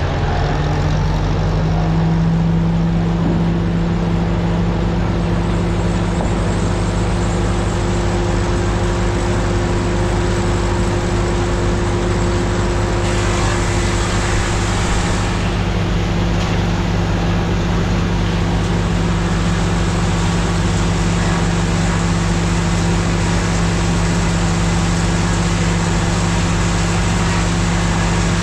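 Machinery running steadily at one speed: a constant low hum with several steady tones and no change in load.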